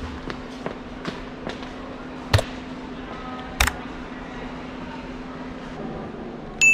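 Shop interior ambience: a steady low hum with faint footsteps about twice a second, two sharp clacks, and a short electronic beep near the end.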